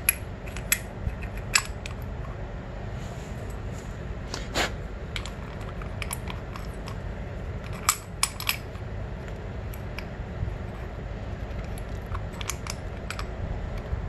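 Scattered small metallic clicks and taps as new brake pads are handled and seated into a Honda CR85R's front brake caliper, over a low steady background hum.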